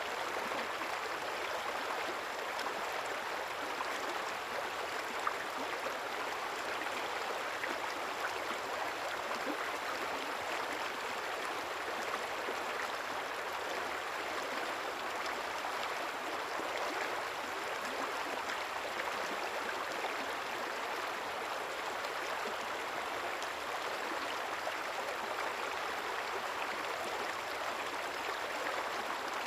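Small river or stream flowing steadily, a continuous even rush of water with fine bubbling and trickling.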